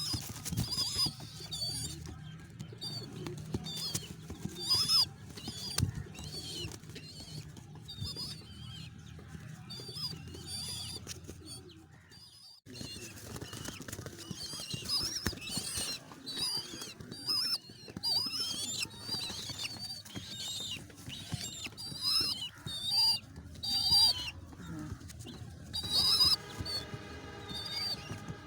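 Baby pigeon (squab) begging with many short, high-pitched squeaks repeated throughout, as it is hand-fed.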